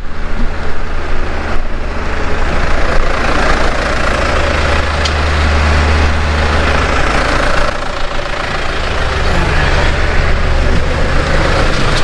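Engine of a farm vehicle running steadily, a low hum that swells about four to seven seconds in.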